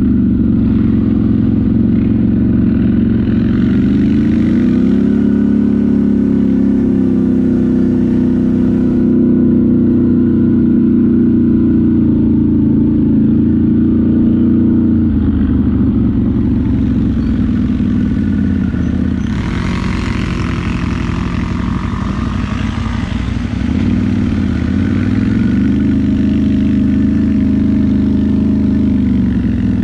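ATV engine running under throttle, its pitch rising and falling as the rider speeds up and eases off, with a spell of rushing noise about twenty seconds in.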